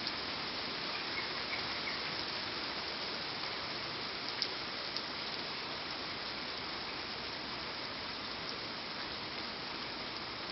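Steady rain falling, an even hiss with a few louder single drips tapping now and then.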